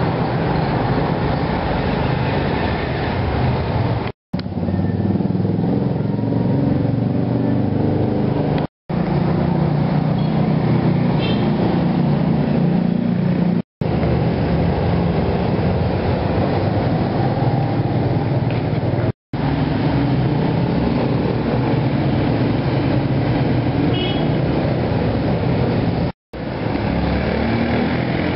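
Steady street traffic noise, a dense low rumble of passing vehicles. It cuts out completely for a split second five times.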